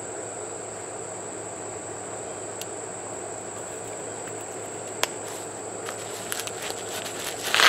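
Steady, high, even insect chorus from the grass, with a few clicks and rustles in the last couple of seconds and a sharp knock right at the end.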